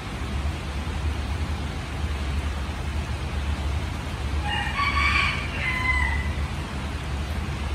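Steady rain falling over a low rumble, with a rooster crowing once about four and a half seconds in, a call of under two seconds that ends on a held note.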